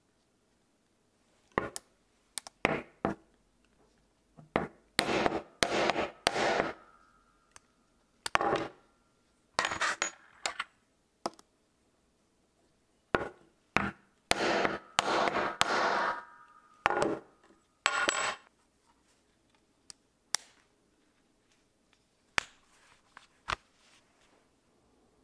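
Groups of sharp metal blows striking a snap-setting tool to set brass snap fasteners in leather. Several quick strikes come in each group, some leaving a short metallic ring, with single taps near the end.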